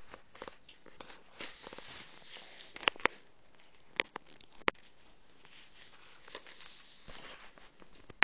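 A toddler's hands splashing and patting bubble-bath water in a tub, with a few sharp slaps about three, four and nearly five seconds in.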